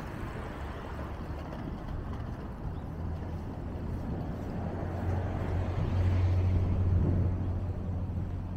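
Low traffic rumble that swells from about five seconds in and is loudest around six to seven seconds, as a vehicle passes.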